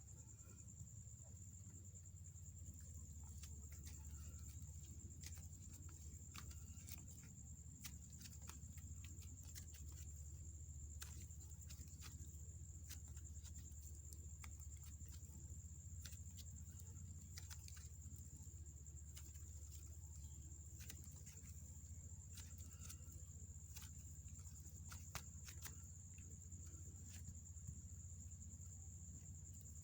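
Faint, scattered small clicks and crackles of clay slime being handled and mixed, over a steady low hum and a thin high whine.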